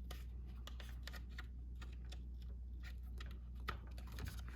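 Irregular light plastic clicks and taps from handling a figure-8 power cable and a Sony BC-QM1 battery charger as the cable is plugged in, with a slightly louder click a little before the end, over a steady low hum.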